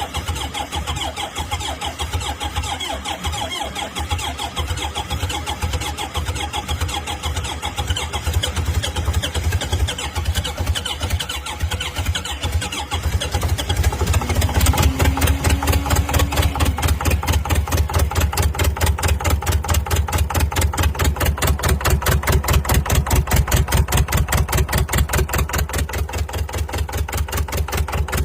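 A long-abandoned diesel engine being revived. It turns over and runs unevenly at first, then about halfway through it catches and settles into a louder, even, pulsing run.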